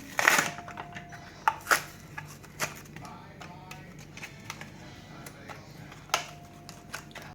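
Plastic toy packaging being pried and torn open by hand: a rip just after the start, then scattered sharp clicks and crackles of the plastic.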